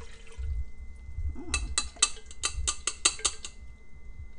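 Metal mesh strainer tapped against the rim of a stainless steel pot as starch slurry drains through it: a quick run of about ten sharp metallic taps, about five a second, starting a second and a half in and lasting about two seconds.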